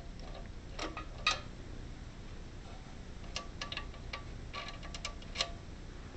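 Scattered metal clinks and clicks, some with a short ring, from the ratchet, socket and loosened mounting bolt as the last bolt holding a bench grinder to its steel pedestal comes free. The sharpest clink comes about a second in, followed later by two quicker runs of clicks.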